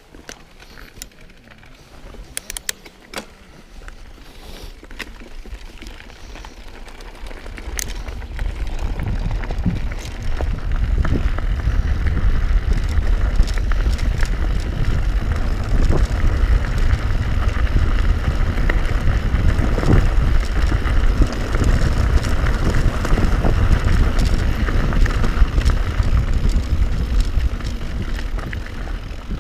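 Mountain bike riding down a rocky trail: scattered clicks and rattles over the stones, then from about eight seconds in a loud, steady rumble of wind on the microphone and tyre noise as speed picks up.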